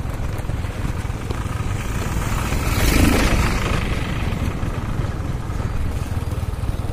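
Wind buffeting the microphone: a loud, steady low rumble that swells louder about three seconds in.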